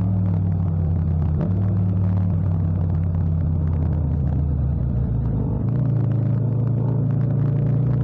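Yamaha MT-07 (FZ-07) 689 cc parallel-twin engine running steadily while riding in traffic, recorded without wind noise. The engine note shifts slightly about one and a half seconds in and again near six seconds.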